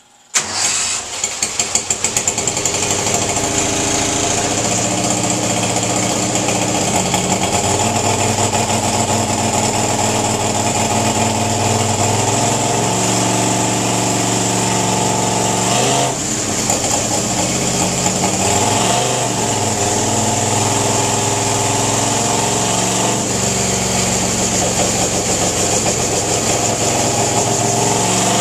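Briggs & Stratton Vanguard V-twin Slingshot racing engine on an engine dyno, starting about half a second in and then running steadily through a dyno pull. Its note shifts to new pitches several times as the engine speed is changed, with a brief dip about 16 seconds in.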